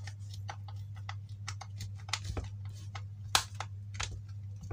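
Irregular small clicks and ticks of a screwdriver working a screw to fasten a transformer to a board, with one sharper click a little past the middle, over a steady low hum.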